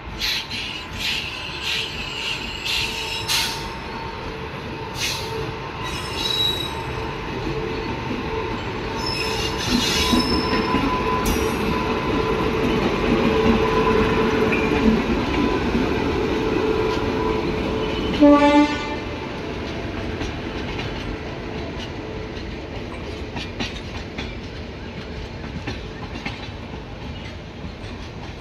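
An Indian Railways WAP-7 electric locomotive and its passenger coaches passing close by, with wheels clicking over rail joints and a steady whine over the rolling noise. A short horn blast sounds about two-thirds of the way through, and then the coaches rumble past with a clickety-clack.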